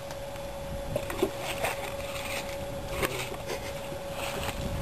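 Dry leaf litter and twigs rustling and cracking in a few scattered snaps, over a faint steady hum.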